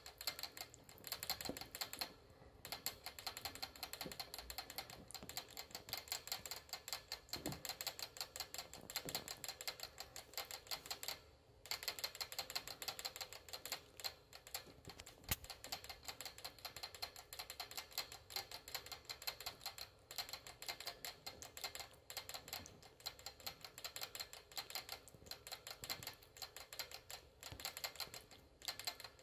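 Pet rat drinking from a metal water-bottle sipper tube, its licks making rapid, even clicking against the metal tip. The clicking breaks off briefly twice.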